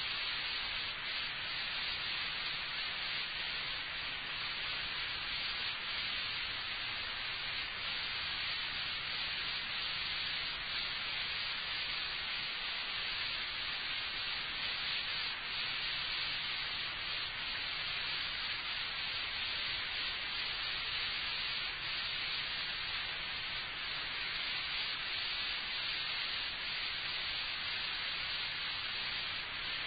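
Steady recording hiss with a faint low hum underneath, unchanging throughout; no speech.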